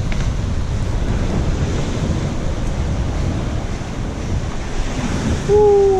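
Sea surf washing against a rocky cliff shore, with wind rumbling on the microphone. About five and a half seconds in, a voice calls out loudly.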